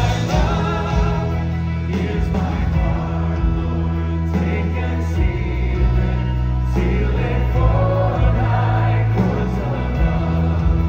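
Live contemporary worship music from a church band: a woman singing lead into a microphone over strummed acoustic guitar and a steady low bass.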